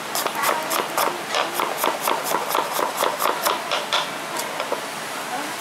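Kitchen knife chopping small red onions on a wooden cutting board: a quick, even run of blade knocks, about five a second, thinning out near the end.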